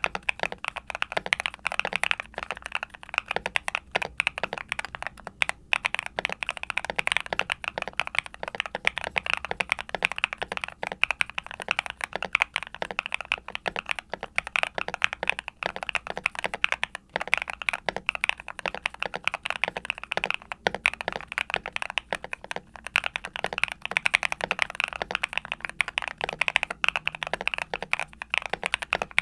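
Continuous fast typing on a Yunzii C68 mechanical keyboard with Gateron Smoothie linear switches (full POM housings) and PBT keycaps, giving a steady stream of deep, clacky key bottom-outs.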